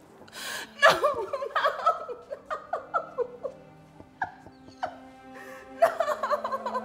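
A woman sobbing hard: gasping intakes of breath and short, wavering, broken cries in quick succession, over soft background music.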